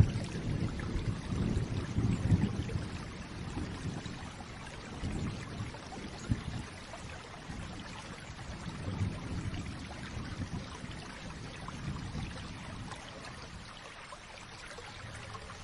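Steady rain falling, with a low thunder rumble that dies away over the first few seconds and a few fainter low swells later on.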